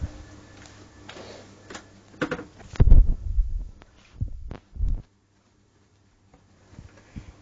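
Handling noise on a handheld camera: a few sharp clicks and rustles, then several dull low thumps as it is moved about. The sound cuts out almost completely for over a second about five seconds in.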